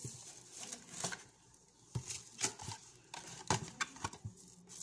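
Spice packets being handled: a cardboard box of turmeric powder and a pouch of red chili powder are picked up and turned, giving a string of light taps and rustles at uneven intervals.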